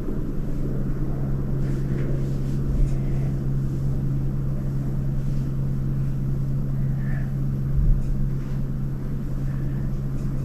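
A steady low hum with a rumbling background, broken only by a few faint light taps.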